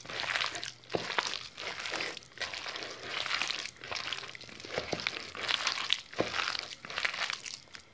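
A hand mixing sliced potatoes and onions into gram-flour batter in a plastic bowl. It makes wet mixing strokes a little faster than once a second, with a few sharper clicks, stopping just before the end.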